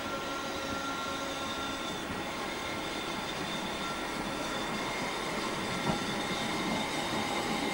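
Steady whine and hum of train machinery as a Class 139 Parry People Mover railcar approaches slowly on the single-track branch, with a single clunk about six seconds in.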